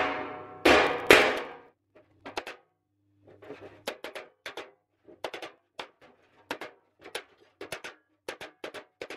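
A toothed bumping file slapped against a welded steel body panel, with a crowned dolly held underneath, to raise low spots. Two loud strikes come within the first second and a half, each ringing on: that zingy ring of the dolly shows the file is contacting steel. After them comes a steady run of lighter taps, about two a second, often in pairs.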